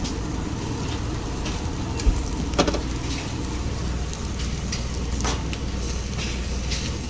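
Chicken skewers sizzling on a direct-flame grill over a steady low rumble, with a few sharp clicks and clacks of skewers or utensils, two of them about two and a half seconds in.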